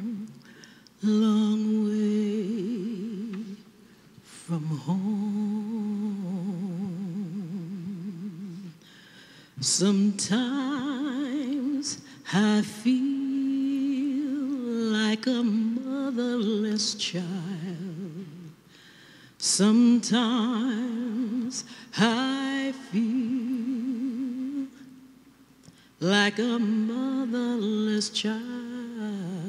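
A woman's solo voice singing a slow spiritual in long, drawn-out phrases with wide vibrato, each phrase followed by a short breath pause.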